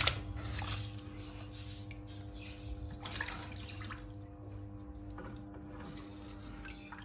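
Aquarium water splashing and trickling, with a few louder splashes near the start and about three seconds in, over the steady hum of the aquarium's filter pump.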